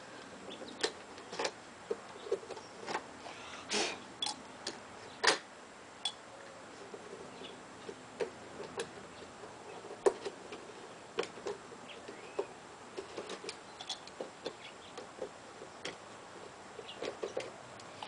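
Razor knife scraping and picking leftover glue out of the lock hole in a wood-paneled door: irregular sharp clicks and short scrapes.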